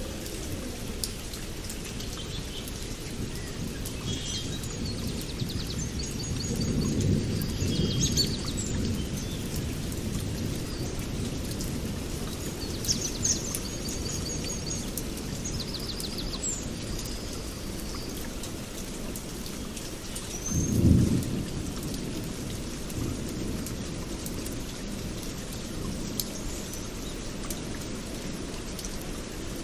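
Steady rain with rumbles of thunder: a longer rumble about seven seconds in and a sharper, louder one about two-thirds of the way through. Birds chirp briefly a few times over the rain.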